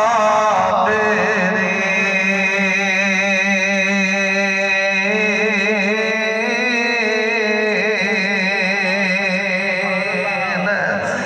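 A man's voice chanting a melodic religious recitation into a microphone, holding long, wavering notes that step up and down in pitch.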